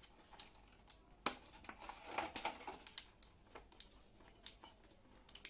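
Handling noise from unpacking a Bluetooth neckband: scattered light clicks and rustles of the plastic packaging tray and cable as the neckband is pulled out, with one sharper click about a second in.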